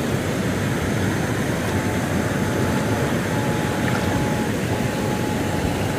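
Electrofishing rig's steady droning buzz while its poles are in the stream to stun fish, with a thin high whine that comes and goes from about two seconds in.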